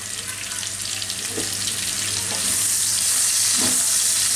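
Sliced onions with cinnamon and cardamom sizzling in hot oil, the sizzle growing louder as they heat, with a few light scrapes of a spatula stirring the pan.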